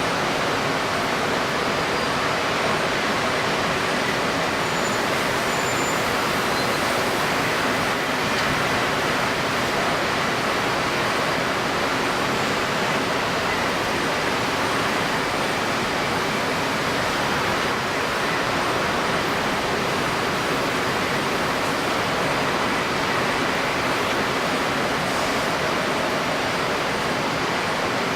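Steady rushing noise of strong wind over wind-stirred, choppy water, even and unbroken throughout.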